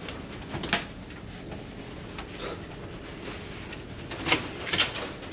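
Steady running noise inside a ferry on a rough crossing, with three sharp knocks: one about a second in and two close together near the end.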